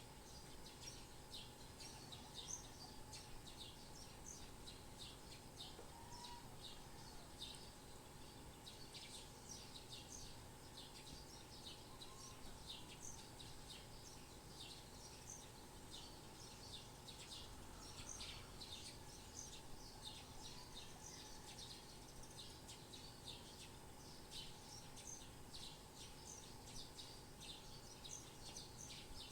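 Faint birds chirping: many short, quick chirps come continually, overlapping one another, over a faint steady background hum.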